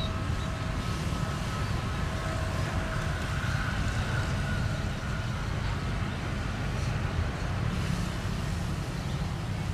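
Jet airliner's engines running on the runway a distance away: a steady low rumble with a faint whine over it.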